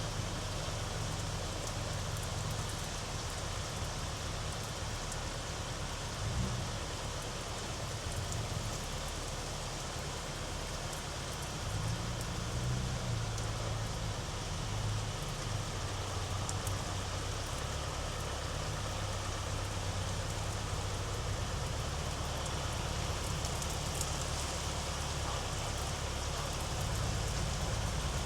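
Steady rain falling on a sidewalk and yard: an even hiss with scattered drips, and a low rumble underneath.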